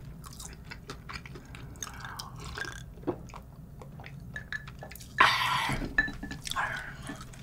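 Close-up mouth sounds of a person eating: soft chewing and swallowing, with gulps as she drinks an iced drink from a glass. About five seconds in comes a loud breathy sound, and a softer one about a second later.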